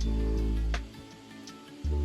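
Background music: sustained low notes that swell and fade, with a light click sounding every half second or so.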